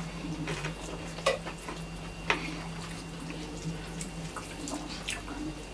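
Eating by hand: wet squishing of rice and dal being mixed with fingers on a metal plate, and chewing, with two sharp clicks about one and two seconds in. A steady low hum runs underneath.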